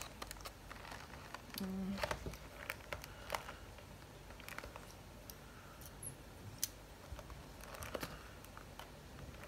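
Scattered faint clicks and light crinkling of a Pilot Kakuno fountain pen's retail box being handled and pried at as someone struggles to open it. A short hum of voice about two seconds in.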